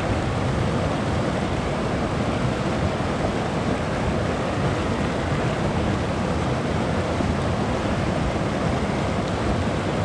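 Steady rushing noise of running water.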